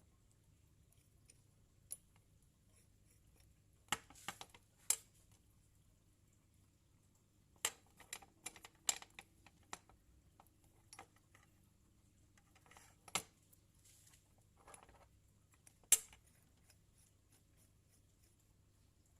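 Scattered light clicks and knocks of small metal parts and hand tools being handled during work on a cut-off saw, some singly and some in quick clusters, with quiet in between; the sharpest knock comes near the end.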